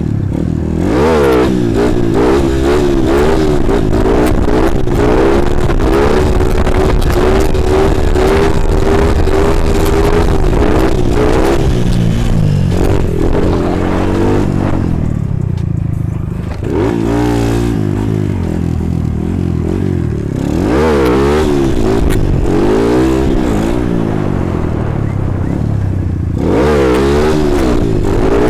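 Tuned Kawasaki KLX150 supermoto's single-cylinder four-stroke engine being ridden hard, its pitch rising and falling with the throttle. It is held at high revs for the first dozen seconds, drops off briefly around the middle, then rises sharply several times in the second half as the front wheel is lifted.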